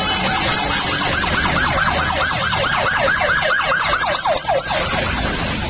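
Emergency-vehicle siren in yelp mode: rapid rising-and-falling sweeps, about four a second, starting about half a second in and stopping about five seconds in, over traffic noise and tyre hiss on a wet road.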